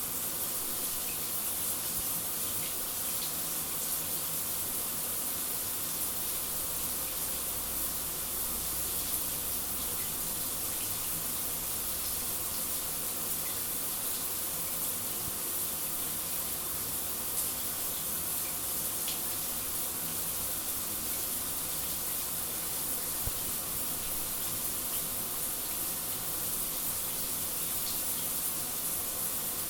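Shower running: a steady, even hiss of falling water spray, strongest in the high treble, with a few faint scattered ticks.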